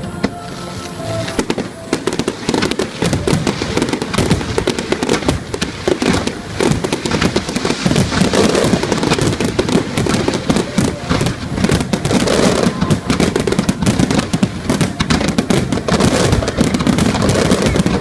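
Fireworks display: a dense, rapid barrage of bursts and crackling that thickens after the first couple of seconds and keeps going without a break.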